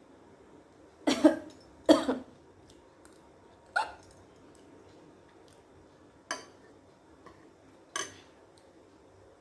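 A woman coughing from the burn of raw green chillies she is eating: two loud coughs about one and two seconds in, then three shorter, quieter coughs spread over the following six seconds.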